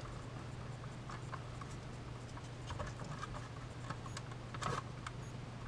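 Faint scattered clicks and light taps of hands fitting an alarm clock's circuit board and wires into its plastic case, over a steady low hum.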